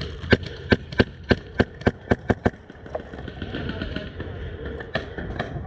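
Airsoft gun firing a string of about eight sharp single shots, roughly three a second, then two more shots a few seconds later.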